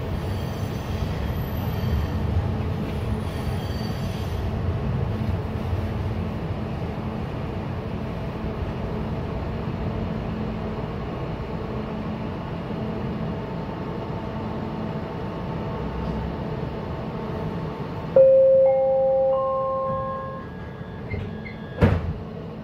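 Steady rumbling hum in a stopped SkyTrain Expo Line car, slowly fading. About eighteen seconds in, clear chime tones start abruptly and step up in pitch, with a single sharp click shortly before the end.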